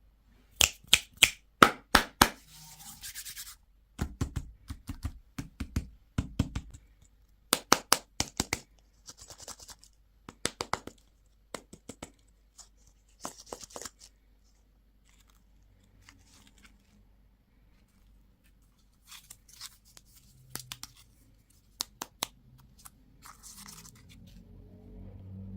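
Hands opening plastic candy-toy packaging: runs of sharp plastic clicks and snaps, with short bursts of crinkling and scratching wrapper. Quieter for a few seconds after the middle.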